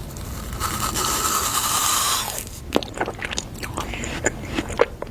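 A rustling hiss for about two seconds, then crisp biting and crunching with chewing close to the microphone.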